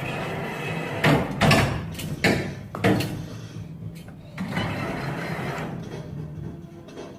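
Claw machine mechanism knocking and rattling: several loud knocks in the first three seconds and a longer rattle about five seconds in, over a steady low hum.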